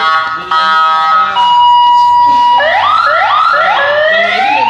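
Ambulance-style electronic siren fitted to a Honda, switching between tones: a pulsing multi-note pattern, then a held steady tone for about a second, then rising wails, a few quick ones followed by a long slow rise.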